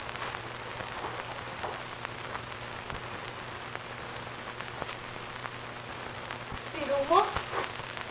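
Steady hiss and fine crackle over a low hum: the surface noise of an old 1950s film soundtrack. A short tone slides up and down near the end.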